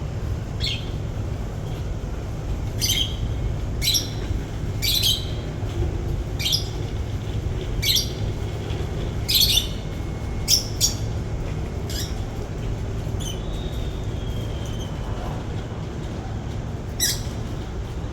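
A bird giving short, sharp calls, roughly one a second with a pause of a few seconds near the end, over a steady low rumble.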